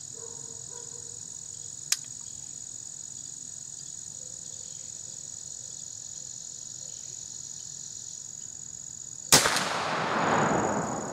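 A CVA Hawken percussion black-powder rifle fires once near the end: a sharp report followed by a long rolling echo lasting about two seconds. Crickets chirp steadily in the background throughout.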